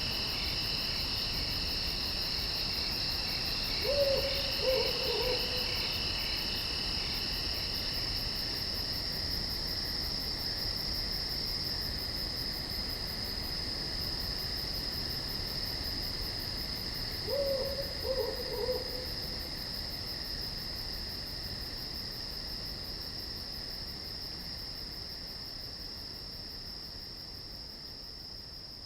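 An owl hooting twice, each time a short run of three or four low notes, over a steady high chirring of insects. The whole ambience fades slowly near the end.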